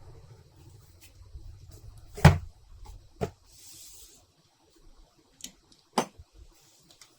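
Packaging being handled while a keyboard box is unboxed: a few sharp knocks, the loudest about two seconds in, and a short rustle around three and a half seconds.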